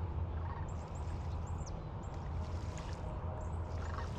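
Short, high bird chirps repeating every fraction of a second over a steady low rumble.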